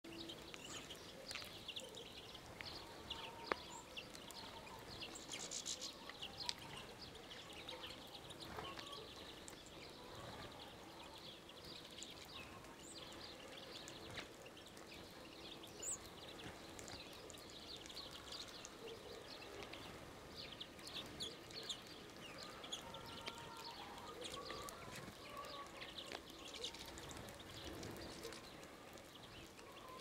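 Flock of European goldfinches, with some greenfinches, calling while feeding: many short, high calls overlapping throughout, and a few sharp clicks.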